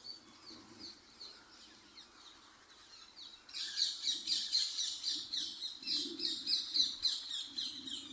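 A flock of feral green parrots calling: faint at first, then from about three and a half seconds in a loud, dense run of shrill, quick squawks, several a second.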